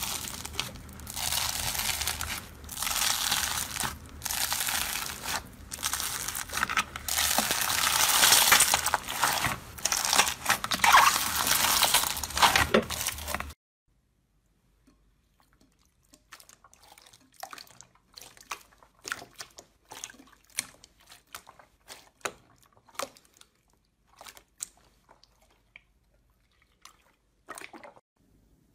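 Slime being squeezed and pressed by hand: loud crackling and crinkling in quick repeated pulses. About halfway through it cuts off suddenly, giving way to quieter, scattered clicks and small crackles.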